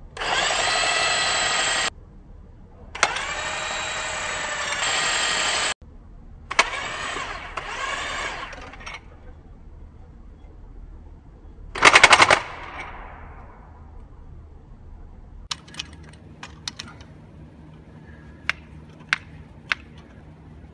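A cordless power driver turns the screw of a cable tensioning tool, pulling a steel lifeline cable taut. Its motor whine comes in three bursts of about two seconds each and changes in pitch under load. About twelve seconds in there is one short, louder rattling burst, followed later by a few sharp clicks.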